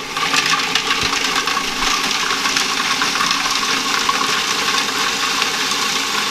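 Food processor running steadily, its blade grinding spinach, basil, cashews, hemp seeds and garlic with olive oil into pesto.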